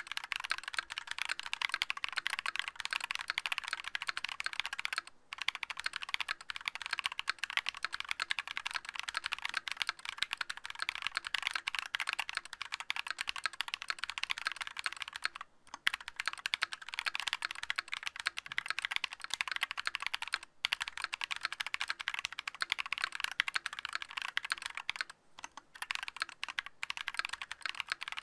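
Fast, continuous typing on a mechanical keyboard with lubed Holy Panda tactile switches (YOK Trash Panda housings with Halo True stems, lubed with Tribosys 3203): a dense run of irregular key clacks with a few brief pauses.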